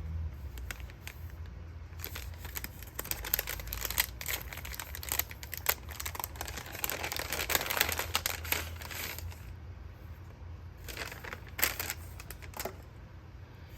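Crinkly packaging being handled and opened, rustling in irregular fits with a busier stretch in the middle and a few short crinkles near the end.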